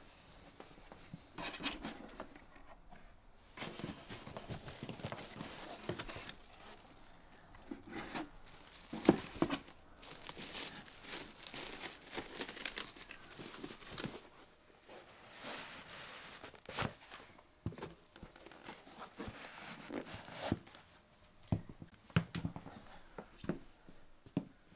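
Plastic wrapping crinkling and rustling as a pair of trainers is unwrapped, in irregular handling bursts with a few sharp knocks.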